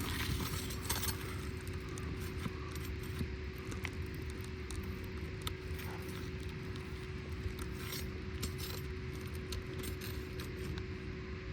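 Scattered light metallic clicks and scrapes of a roofing pry tool against asphalt 3-tab shingles as a fastening staple is worked loose. A steady low hum runs underneath.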